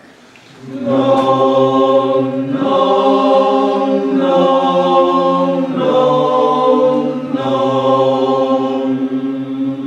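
The lead and bass sections of a barbershop-style chorus singing a cappella together in a tuning exercise. They start about a second in and sing a run of long held notes, each changing after about a second and a half.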